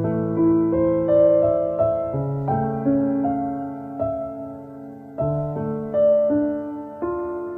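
Slow, gentle background piano music, single sustained notes and chords struck about every half second and left to ring and fade.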